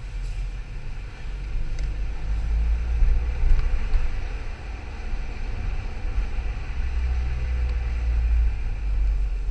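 Skoda Yeti's 1.2 TSI (CBZB) petrol engine running with a steady low rumble, recorded for an abnormal engine noise.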